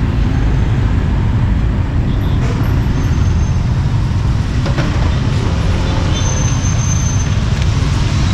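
Steady low rumble of street traffic, with a few faint knocks.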